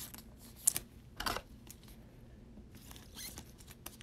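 Soft scrapes and light rustles of a trading card being handled and slid into a plastic sleeve and holder. Brief sliding sounds come about a second in and again a little after three seconds.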